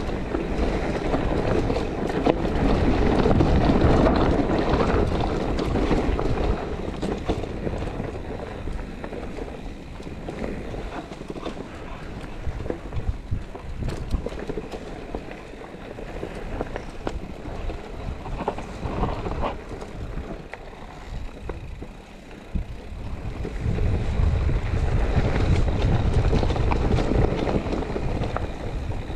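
Mountain bike descending a rough dirt trail: tyres rolling over dirt and stones, with wind rushing over the action camera's microphone and a light rattle of small clicks from the bike. It is louder at the start and again near the end, quieter in between.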